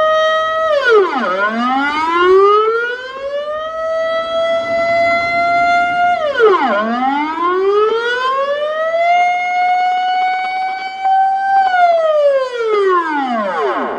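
Dutch civil-defence air-raid siren sounding its monthly test signal: a held tone that drops steeply in pitch and climbs slowly back, about every five and a half seconds. Near the end the pitch falls away once more and the siren stops.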